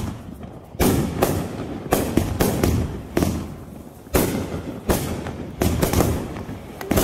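Aerial fireworks bursting overhead in a rapid series of sharp bangs, about one or two a second, each trailing off in a short echo.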